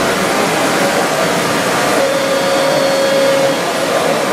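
Radio-controlled crawler crane model driving, its small electric drive motors and gearing whirring steadily, with a thin whine from about two seconds in that stops about a second and a half later.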